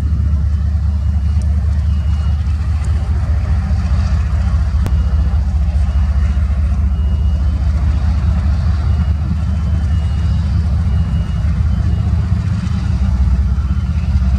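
Diesel locomotive engines rumbling steadily at a low pitch, with a faint high tone that comes and goes.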